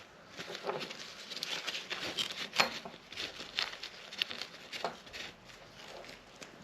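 A rag wiping down cleaned Glock 44 pistol parts: soft, irregular rubbing and scraping strokes with a few light ticks.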